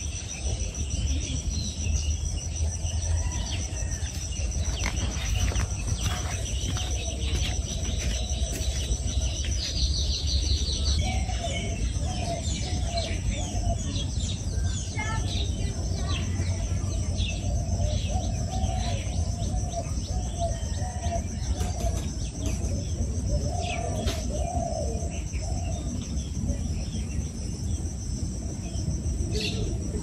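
Birds chirping in a dawn chorus: many short calls and chirps from several birds overlapping, over a steady high-pitched trill and a low background rumble.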